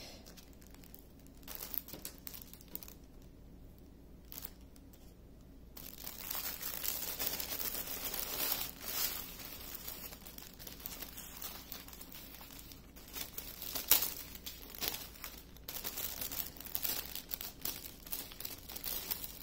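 Clear plastic bags crinkling as small packets of diamond-painting drills are handled and pulled out of a larger plastic bag. A few faint rustles at first, then steady crinkling from about six seconds in, with one louder crackle about two-thirds of the way through.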